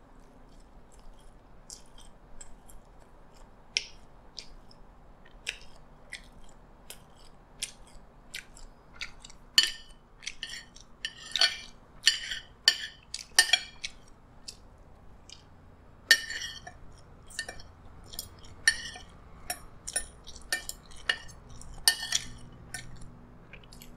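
A person chewing a mouthful of food, heard as a string of irregular wet clicks and smacks, with a few light clinks of a metal spoon and fork against a ceramic plate.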